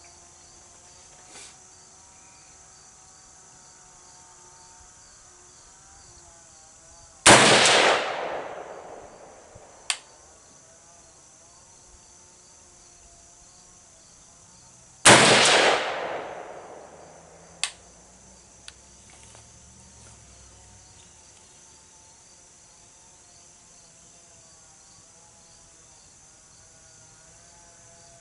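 Two rifle shots from a Daniel Defense MK12 5.56 mm rifle with an 18-inch heavy barrel, about eight seconds apart, each followed by an echo that dies away over about a second and a half. A short sharp click comes a couple of seconds after each shot, and crickets chirr steadily underneath.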